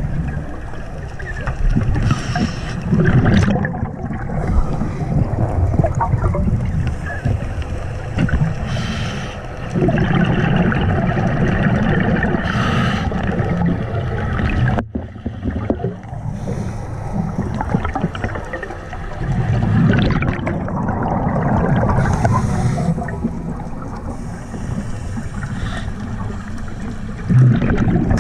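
Underwater sound of a scuba diver breathing through a regulator: exhaled bubbles gurgle and hiss up every few seconds over a constant low rumble of water.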